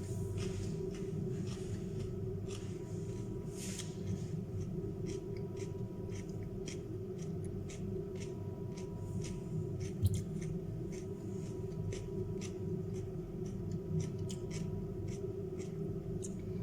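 Raw carrot and cucumber being chewed with the mouth close to the microphone: a run of short, crisp crunches over a steady low hum.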